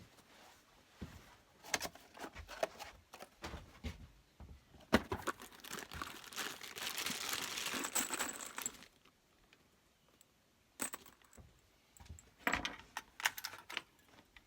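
Handling noises: scattered small clicks and light metallic rattles, with a few seconds of crinkling rustle in the middle, a brief pause, then more clicks.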